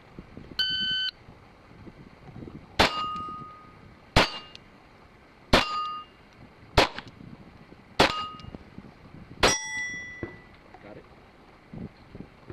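A shot timer beeps once, about half a second long, to start the string, then a pistol fires six shots over about seven seconds. Most shots are followed by the short ringing clang of a steel plate being hit, and the last plate rings at a higher pitch, as the stop plate ending the string.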